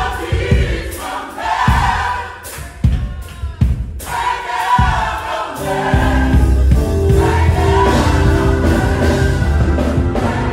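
Gospel choir singing over a live band with sharp drum hits; about halfway through the singing gives way to the band holding sustained chords over a heavy bass.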